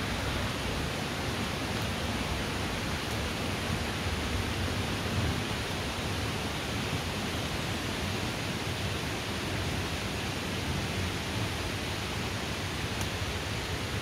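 Rain falling on a dense forest canopy, a steady even hiss.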